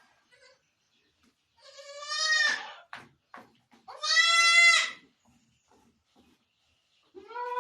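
Goat bleating: two loud, drawn-out bleats about two seconds apart, then a third, softer bleat starting near the end.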